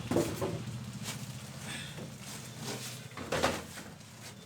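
Scattered clicks, knocks and rustles of hands handling a PC case and its packaging during unboxing, the loudest knock about three and a half seconds in, over a low steady hum that fades out about three seconds in.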